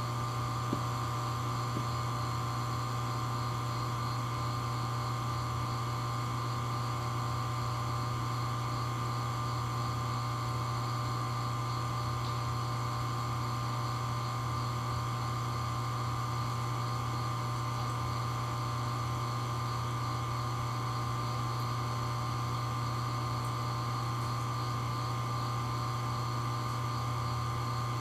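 Vortech MP60 aquarium powerhead running at constant speed: a steady hum with a thin, higher whine over it.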